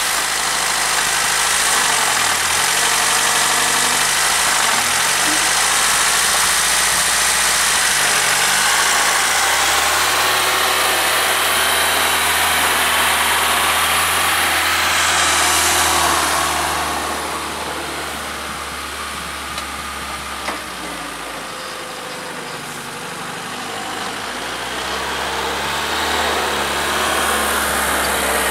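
Tractor engine with a blown head gasket running; its revs dip briefly and recover three times in the first several seconds, then hold steady. It grows quieter for several seconds past the middle and louder again near the end.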